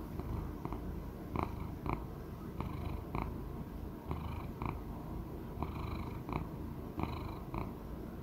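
Elderly Persian chinchilla cat purring steadily close up. Short, higher sounds come in pairs about every second and a half, in time with its breathing.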